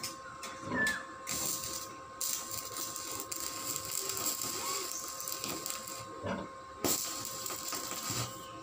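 Stick (arc) welding on a steel gate frame: the electrode crackles and sizzles in three runs, the longest about four seconds, with short breaks between. A faint steady high hum runs underneath.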